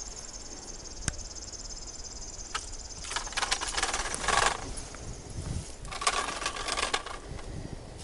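Leafy streamside plants and clothing rustling in two bouts, starting about three and about six seconds in, as a hand pushes through dense growth; a single sharp click about a second in.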